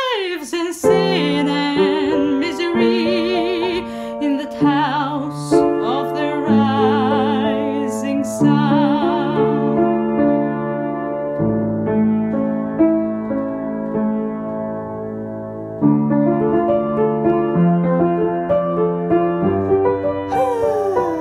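A woman singing with vibrato over a keyboard playing sustained chords. The voice drops out about halfway, leaving the keyboard playing on alone, with a single falling sung slide near the end.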